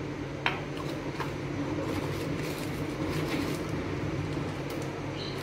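A steady low hum runs throughout. Over it come a few light clicks and taps, two sharper ones within the first second or so, as a spice jar and a cardboard box of baking soda are handled on a kitchen counter.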